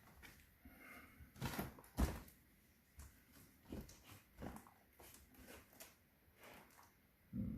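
Cardboard box and packaging being handled and opened: a string of soft knocks, scrapes and rustles, with a sharper knock about two seconds in and another near the end.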